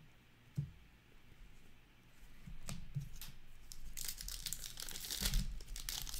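Foil wrapper of an Upper Deck hockey card pack being handled and torn open, crinkling and crackling. Faint at first, it builds from about two seconds in and is loudest and densest in the last two seconds.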